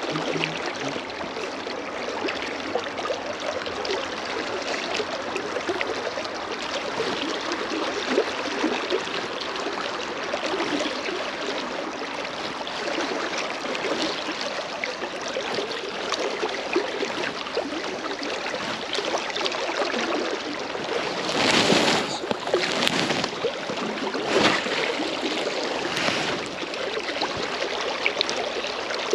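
River Tweed water flowing steadily past, an even rushing hiss. Near the end, a few louder swishes come as the salmon fly line is lifted and cast.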